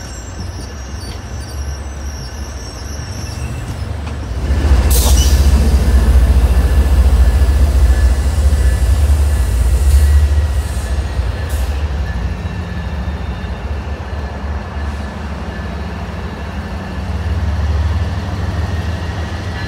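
Passenger trains moving through a rail yard: a low rumble that swells loud about four and a half seconds in as a train passes, with a brief high wheel squeal at the swell and a thin steady squeal throughout. The rumble eases, then rises again near the end as another train approaches.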